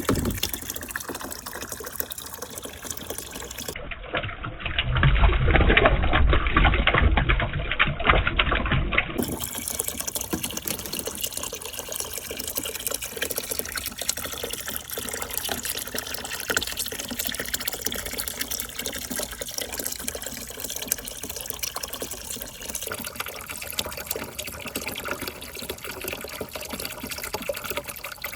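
Water running steadily through a water marble-run course, gushing louder and heavier for a few seconds from about four seconds in before settling back to a steady flow.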